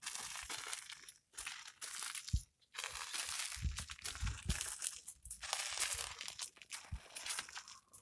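African elephant crunching and snapping dry brush and twigs at close range: irregular crackling in bursts, with a few dull thuds about halfway through.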